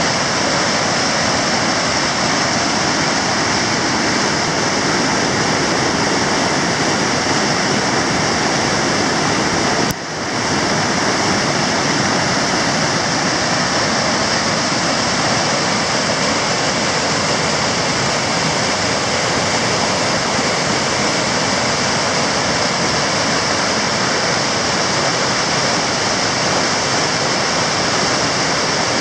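River rapids rushing steadily as white water pours over rock ledges and around boulders. The sound dips briefly once, about ten seconds in.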